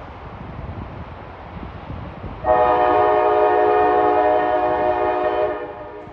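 Diesel locomotive air horn sounding one long, steady chord of about three seconds, starting about two and a half seconds in, over a low rumble.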